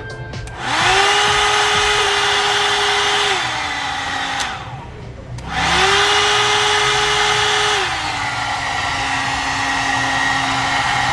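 Hot air dryer brush switched on: its fan motor spins up with a rising whine and a rush of air, drops to a lower speed after a few seconds, and switches off. It is switched on again a second later at high speed and drops back to the low setting, running after its broken cable has been repaired.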